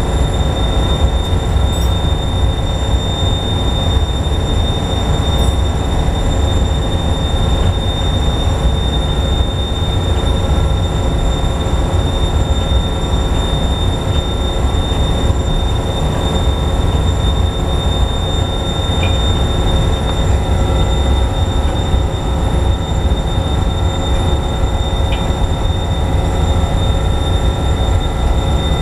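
Loud steady drone of running heavy industrial machinery, with a constant high whine over it.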